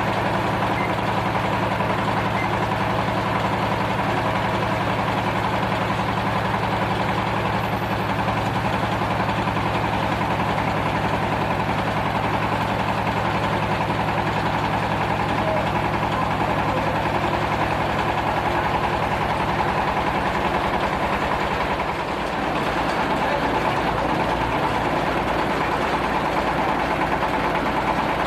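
Stone crusher machine running, a steady engine-driven mechanical drone. About three-quarters of the way through, the low hum shifts and the sound dips briefly before carrying on.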